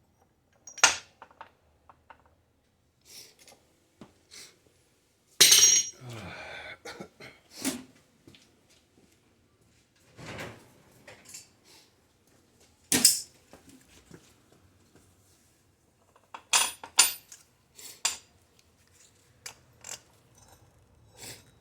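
Metal tools and wheel-hub parts being handled and set down on a workbench: a series of separate sharp metallic clanks and clinks at irregular intervals, with a short scraping rattle after one of the loudest.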